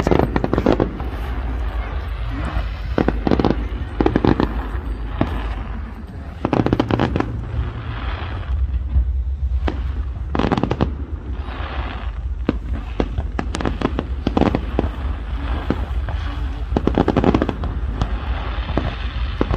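Aerial fireworks display: many shells bursting in quick succession, with sharp bangs and crackle over a steady low rumble.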